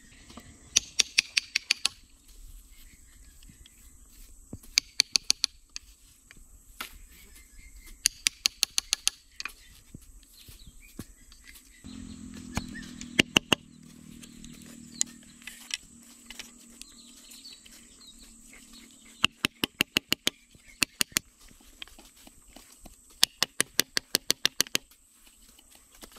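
Bursts of quick, sharp knocks from a hand tool striking wood or bamboo, five to seven blows at a time at about five a second, with pauses of a few seconds between bursts.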